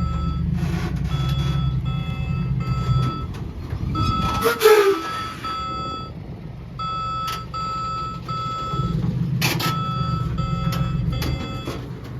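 Dump truck reversing, its reverse alarm beeping over and over above the low rumble of a diesel engine. The engine rumble drops away about four seconds in and picks up again near the end.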